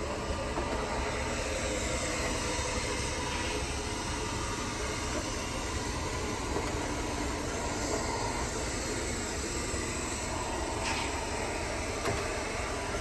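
Roomba robot vacuum running steadily: a continuous whir of its motor and brushes.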